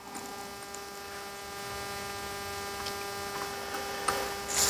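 Steady electrical mains hum from workbench equipment, with a few faint light ticks and a short rush of noise near the end.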